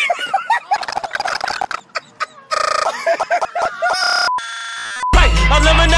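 Stutter-edited audio collage: short chopped sound snippets with high squawk-like cries, looped into buzzy repeats and a brief steady beep. Loud music with a heavy bass line cuts in about five seconds in.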